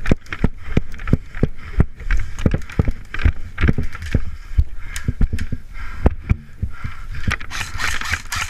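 Running footsteps with gear jostling against a body-worn camera, making irregular thumps a couple of times a second under wind rumble on the microphone; near the end a brushing rustle, like pushing through undergrowth.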